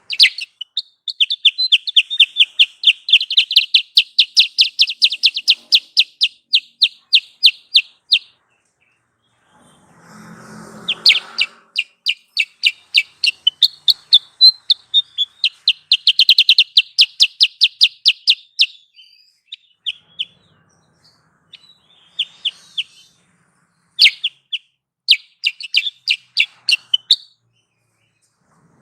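Kutilang sutra bird calls used as a lure: long runs of rapid, high repeated chirps, about six a second, in two long bouts, followed by shorter scattered bursts. A brief rustling noise comes about ten seconds in, between the bouts.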